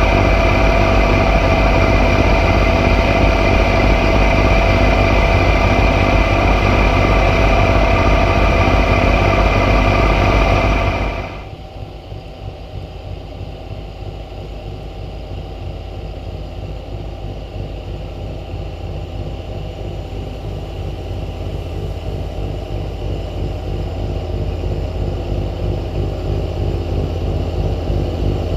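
John Deere X748 garden tractor's three-cylinder diesel engine running steadily under load while its 54-inch front snowblower throws snow, loud and close at first. About eleven seconds in the sound drops to a more distant level, then grows steadily louder as the tractor approaches.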